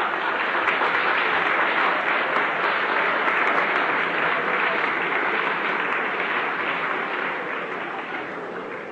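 Audience applauding, a dense clatter of many hands clapping that slowly dies down near the end.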